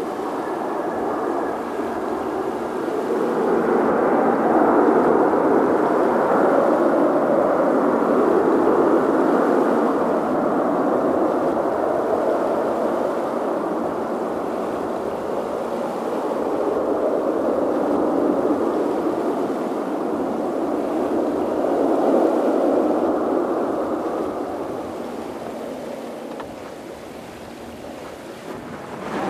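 Boeing 737-800 airliner's CFM56 jet engines running with a steady rushing drone. It swells twice and fades away near the end.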